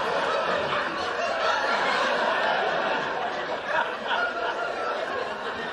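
Sitcom studio audience laughing together, the laughter slowly dying down toward the end.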